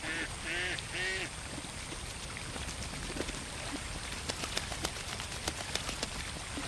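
A duck quacking, three short quacks in the first second or so, followed by a run of small splashes and drips on the pond water, thickest about four to six seconds in.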